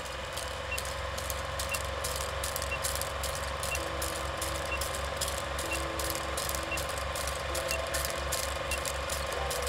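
Film projector running with a fast, even clatter and scattered crackle, with a short high beep once a second marking the seconds of a countdown film leader.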